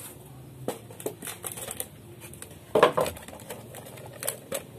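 Irregular light clicks and crackles, with one louder scrape or knock about three seconds in.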